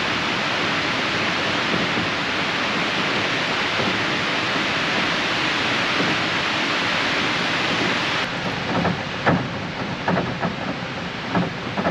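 Storm wind rushing steadily. About eight seconds in it drops a little and turns more uneven, with a few short knocks or gusts.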